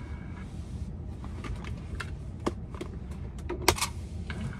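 Steady low rumble inside a car cabin, with a scattering of small sharp clicks and taps, the sharpest a little before the end.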